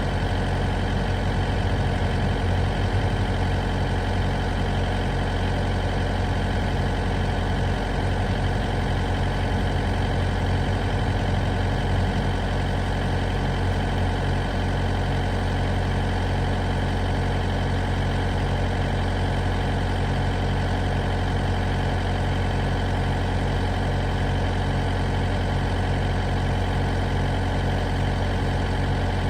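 A vehicle engine running steadily with a low, even hum, no change in pitch or level.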